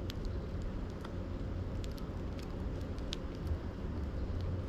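Scattered sharp clicks of Eurasian tree sparrows pecking seed off a wooden board, over a steady low rumble.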